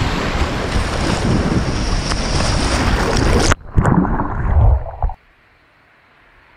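Waves washing over a camera held at the waterline: loud rushing surf and wind noise on the microphone. About three and a half seconds in the camera goes under and the sound turns muffled, with low underwater sloshing, then drops to a faint hiss about five seconds in.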